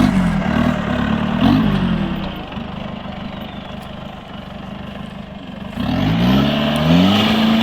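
Off-road vehicle's engine revving hard in bursts, easing to a quieter drone for a few seconds, then revving up again with a rising pitch about six seconds in.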